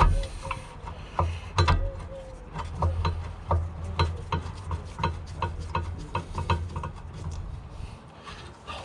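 Hand tools working on a car's brake assembly: irregular sharp metallic clicks and clinks, several a second, over a low hum that comes and goes.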